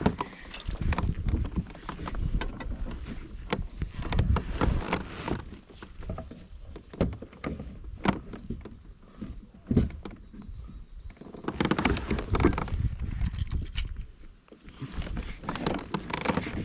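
Irregular knocks, clicks and rustling water and handling noise aboard a fishing kayak, with a low rumble underneath.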